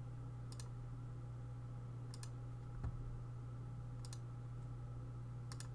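Computer mouse button clicking about four times, each a quick press-and-release pair a second and a half to two seconds apart, over a steady low hum, with a soft thump about halfway through.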